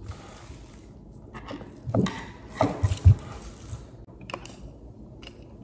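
Metal prosthetic pylon tube being handled and seated on a prosthetic foot's adapter: a few dull knocks about two to three seconds in, then a light click.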